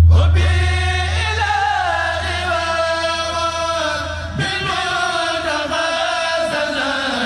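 A kourel, a group of Mouride religious singers, chanting a khassida together in long, drawn-out notes, one line sliding slowly downward early on. A loud low hum under the voices fades away over the first few seconds.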